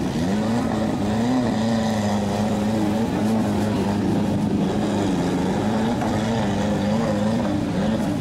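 Off-road 4x4 truck's engine labouring under load as it wades through a deep water pit, its pitch rising and falling again and again with the throttle.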